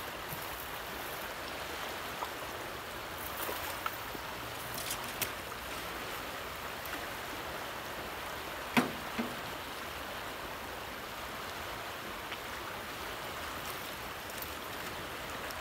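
Fast river current rushing steadily past a steep bank. A few faint ticks, and one sharp knock about nine seconds in.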